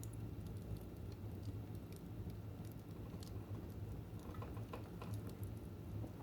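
Fire in a fireplace crackling: scattered small pops and snaps over a steady low rumble, with a quick cluster of crackles between four and five seconds in.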